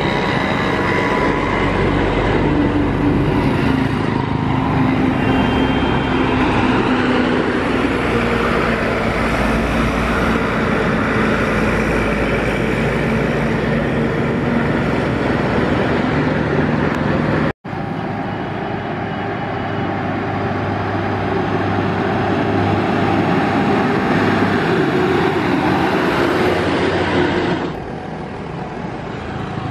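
Mixed road traffic of buses, cars and auto-rickshaws driving past with their engines running. The sound cuts out for an instant a little past halfway, then carries on, and it falls somewhat quieter near the end.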